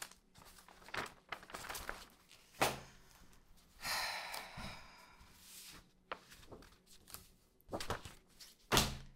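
Sheets of paper handled and rustled at a table, with a few sharp knocks on the tabletop, the loudest about two and a half seconds in and near the end.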